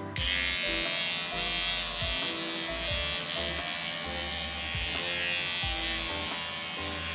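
Small handheld electric pet trimmer switching on and buzzing steadily as it is run through a long-haired cat's matted fur, with background music.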